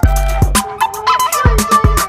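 Background hip-hop style music with a steady beat, deep bass hits and crisp hi-hats.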